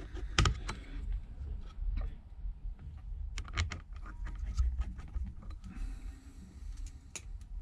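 Tiny screws being handled and driven into a phone's frame with a precision Phillips screwdriver: scattered light clicks and taps over a steady low hum.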